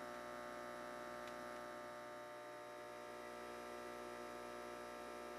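Steady, faint electric hum of the fireplace's GreenStart ignition air pump, running while it blows air into the firebox to light the wood. There is a single faint tick about a second in.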